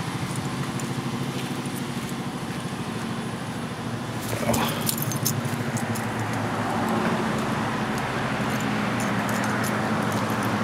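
Road traffic: a steady low engine hum with a noise wash, and a short burst of light clicks about four and a half seconds in.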